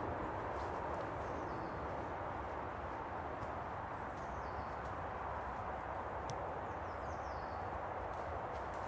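Woodland ambience: a steady hiss of background noise with a few short, high, falling bird chirps and an occasional faint snap or click.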